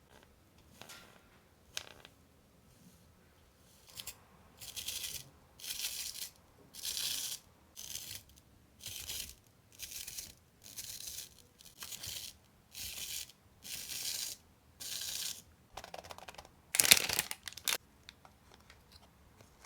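Paper or tape crafting materials being worked by hand: a run of about a dozen short, crisp tearing strokes, about one a second, then a louder, longer one near the end.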